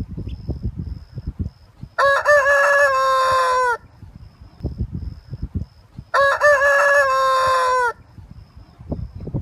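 A rooster crowing twice, each crow about two seconds long and falling in pitch at the end, with low rumbling background noise between the crows.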